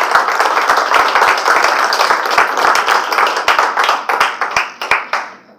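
Audience applauding with dense, overlapping hand claps that thin out and stop near the end.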